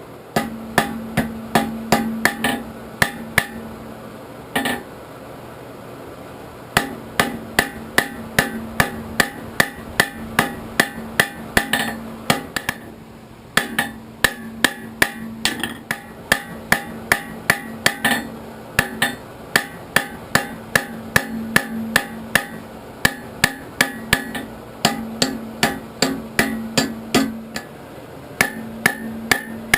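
Hand hammer striking steel on an anvil in steady forging blows, about three a second, each blow ringing. The hammering stops for a few seconds near the start and again briefly about halfway through.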